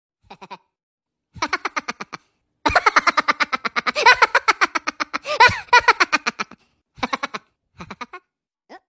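Kids laughing hard in rapid, pulsing bursts: a short burst, then a long stretch of continuous laughter, then a few shorter fits that die away near the end.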